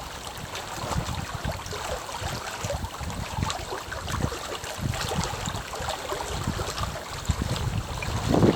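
Small waves lapping irregularly against the pond's bank, with soft splashes and wind rumbling on the microphone; a louder splash comes near the end.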